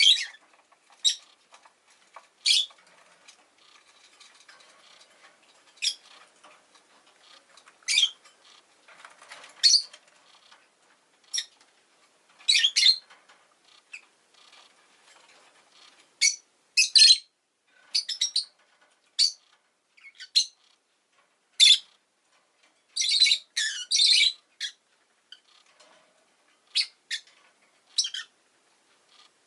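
Rosy-faced lovebird chirps and squawks: short, shrill calls at irregular intervals, coming in a quick run of several a little past two-thirds of the way through.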